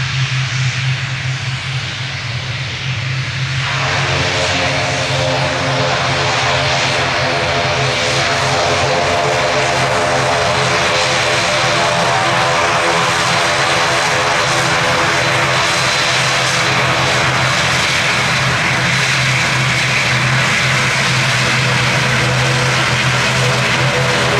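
ATR 72-600 turboprop airliner's Pratt & Whitney PW127-series engines and six-blade propellers running, with a steady low propeller hum. About four seconds in, a stack of steady engine tones joins and the sound gets louder, then holds.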